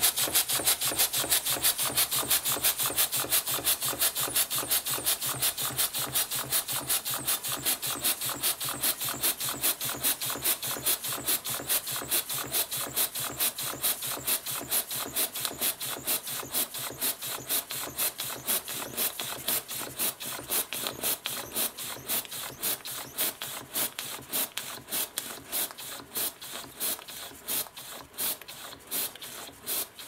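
Small model horizontal steam engine running on a homemade copper boiler, beating out an even, rapid rhythm of exhaust chuffs and knocks, several a second. It has a knock that the builder puts down to a main bearing he could not tighten any further. The beats slow a little and grow quieter toward the end.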